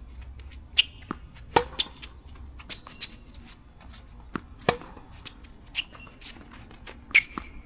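Tennis balls struck with racquets in a hard-court rally: sharp pops at uneven intervals, some with a brief ringing ping, mixed with lighter ball bounces.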